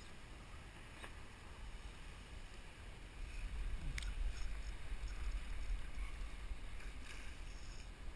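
Wind rumbling on the microphone, louder from about three seconds in, over light water sounds around a drifting plastic kayak, with a sharp tap about four seconds in.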